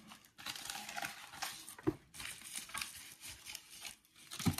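Packaging crinkling and rustling as it is handled, in two long stretches, with a sharp knock near the middle and another near the end.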